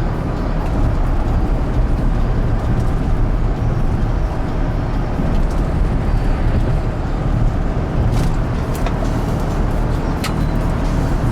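A car driving at road speed, its engine and tyres rumbling steadily as heard from inside the cabin, with a few short clicks near the end.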